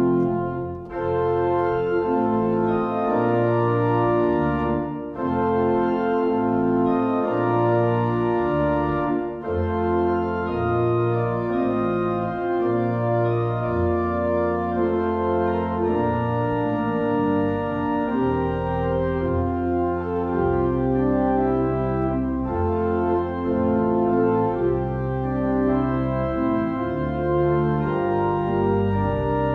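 Organ music: a slow piece of held chords changing every second or two, with short breaks between phrases in the first ten seconds.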